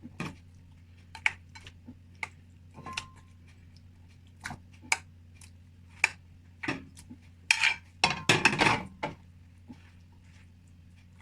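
Kitchen utensils clinking and knocking against cookware in scattered single strokes, with a busier run of clatter about eight seconds in.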